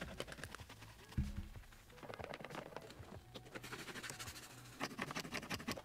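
A brush scrubbing foamy cleaner over a car's interior air vent: quick, faint scratchy strokes that come thicker near the end, with a low thump about a second in.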